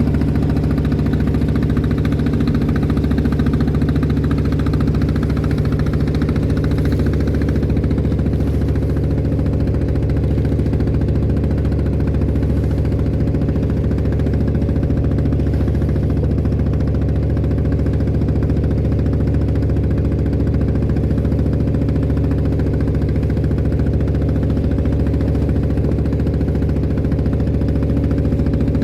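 A klotok boat's diesel engine running steadily at an even speed.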